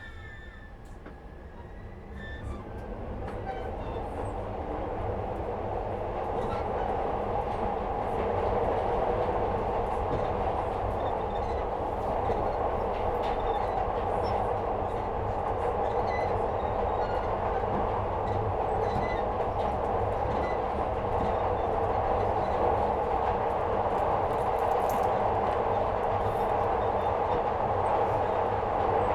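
Second-generation Glasgow Subway train heard from inside the car, pulling away. The running noise builds over about eight seconds, then holds as a steady rumble at speed.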